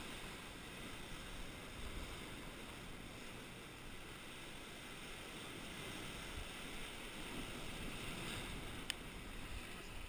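Surf washing and breaking around coastal rocks, a steady wash of noise. A single sharp click sounds about nine seconds in.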